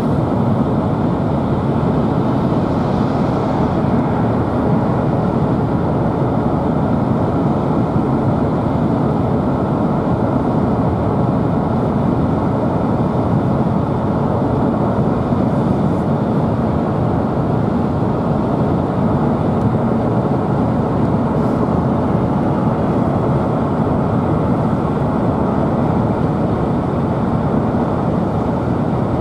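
Steady road noise of a car driving, heard from inside the cabin.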